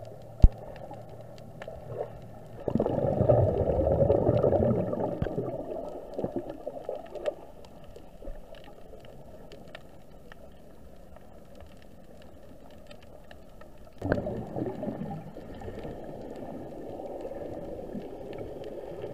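Muffled water sloshing and gurgling around a camera held underwater, with two louder rushes of water, one about three seconds in and one near fourteen seconds in, and a sharp click about half a second in.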